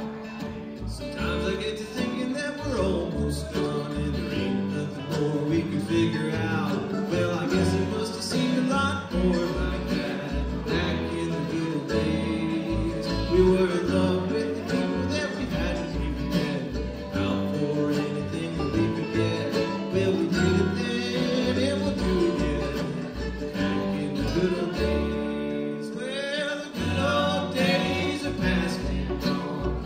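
Bluegrass string band playing live: banjo, mandolin, acoustic guitar, dobro and upright bass, with the bass plucking a steady pulse of low notes under the picking.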